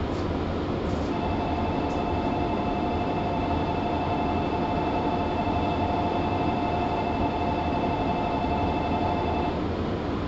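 JR 115-series electric train running, heard from inside the car: a steady rumble, with a steady whine that starts about a second in and stops near the end.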